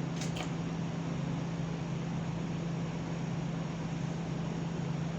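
Steady background hiss with a constant low hum, like a room fan or air-conditioning unit running, with a couple of faint clicks just after the start.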